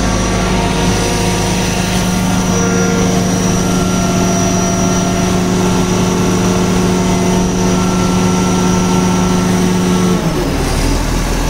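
Diesel engine of an XCMG 60-ton truck crane running steadily at a constant speed, with a strong even hum and faint steady whines over it. About ten seconds in, the tone shifts lower.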